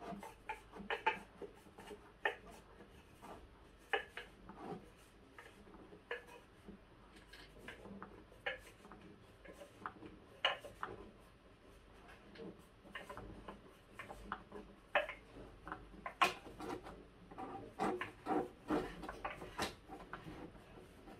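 A flat-pack table leg being screwed by hand into the fitting under the tabletop: irregular clicks, knocks and rubbing as it turns and bumps against the board, growing denser and louder in the last few seconds.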